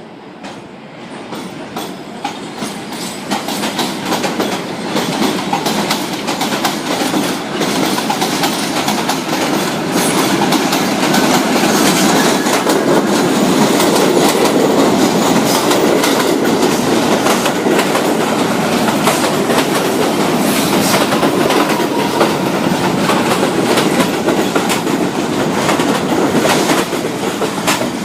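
New York City Subway train running along the line, its rumble growing louder over the first several seconds, then staying loud with a dense clatter of wheel clicks over the rail joints.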